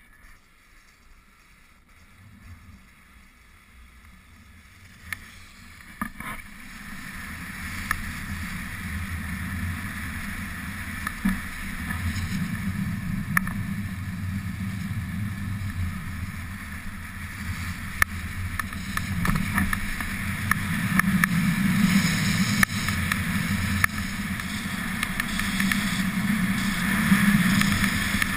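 Skis sliding and carving over groomed snow with wind rushing past the microphone, starting quiet and growing steadily louder as speed builds, with a few sharp clicks along the way.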